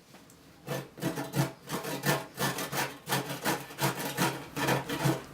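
Rhythmic rubbing or rasping strokes, about three a second, each with a low buzzing pitch, starting just under a second in and running on near the end.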